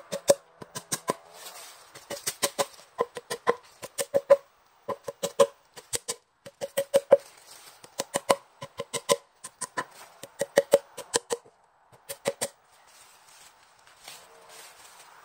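Small hammer tapping enoki spawn plugs into drilled holes in a cherry log, in quick groups of two to four sharp strikes, each with a short ringing note; the tapping stops about twelve seconds in. The sound runs at double speed.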